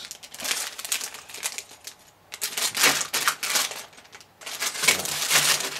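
Clear plastic bags of LEGO bricks being handled and squeezed, the plastic crinkling and the loose pieces rattling inside, in several bursts.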